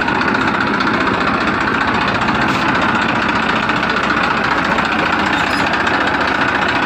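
Steady engine running at idle with a fast, even knock, like a tractor engine sound effect laid over the scene, since the plastic toys themselves have no motor.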